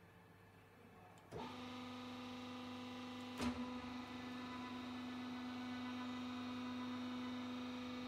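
Vertical paper baler's electric hydraulic power unit switching on with a click about a second in, then running with a steady hum; a single sharp knock comes about two seconds after it starts.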